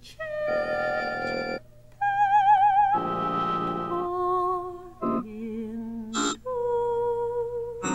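Avant-garde electronic music: a soprano holding long notes with a wide vibrato, set against synthesized tape tones that come and go in buzzy held chords and short bleeps, with brief breaks between phrases.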